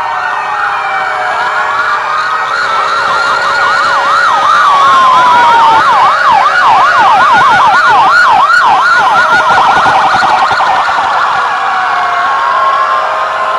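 Sirens of several rescue vehicles sounding at once, overlapping slow wails and fast yelps. The yelping is thickest and loudest in the middle, at about five sweeps a second, then eases back to slower wails near the end.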